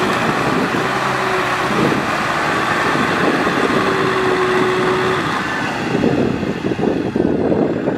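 Kubota M6040SU tractor's diesel engine running under load as the tractor works bogged in deep mud. From about six seconds in the sound turns rough and uneven.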